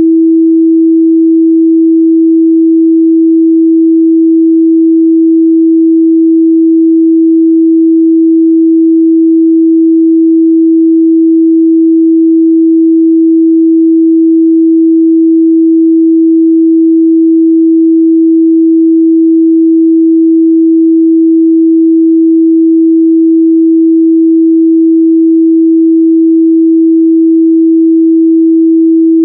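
A steady, loud 326 Hz sine-wave test tone, a single pure pitch held without change.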